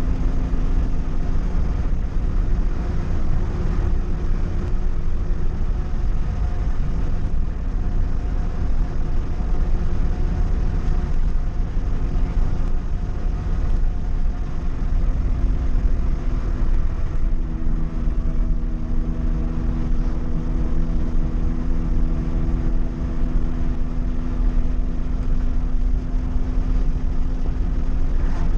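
Volkswagen Gol's engine and exhaust rumbling steadily under throttle while driving, over road noise. The engine note shifts pitch a couple of times as the revs change.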